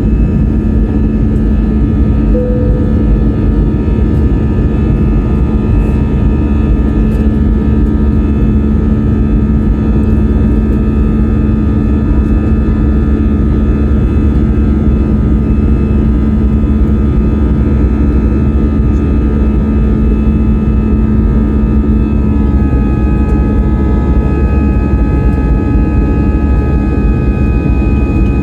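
Jet airliner engines running, heard inside the passenger cabin: a steady, loud low rumble with several steady whining tones above it. About two-thirds of the way through, a low hum drops out and the higher whine tones shift in pitch.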